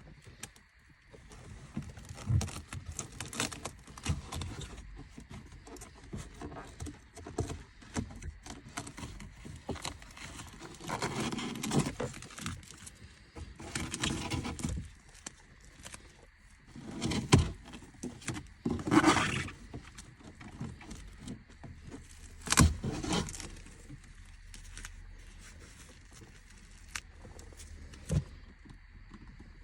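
Irregular clicks, knocks and scraping of hands and tools working on parts, with a few louder knocks and rustles around the middle.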